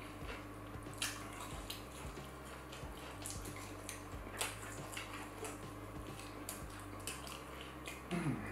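Close-miked eating: chewing and wet mouth and lip clicks, a short click every second or so.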